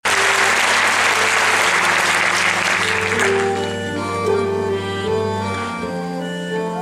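Audience applause over instrumental music; the clapping dies away after about three seconds, leaving the music playing held notes.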